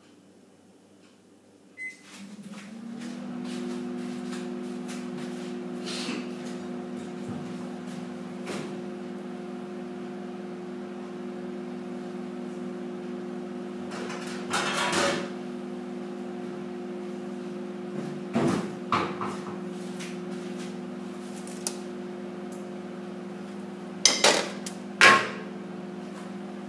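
Microwave oven starting after a short beep about two seconds in, then running with a steady electrical hum. A few sharp knocks sound over the hum, around the middle and twice near the end.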